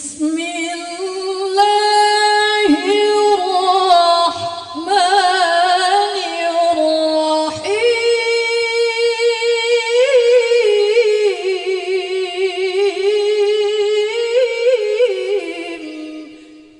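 A woman's voice reciting the Qur'an in melodic tilawah style, opening with the basmala and holding long ornamented notes with a wavering vibrato. There is one short break for breath about seven and a half seconds in, and the phrase fades out near the end.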